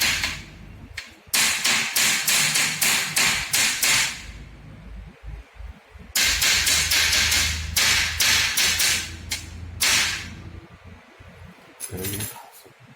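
Rapid repeated sharp knocks, about three a second. They come in two runs of a few seconds each, with a pause between them.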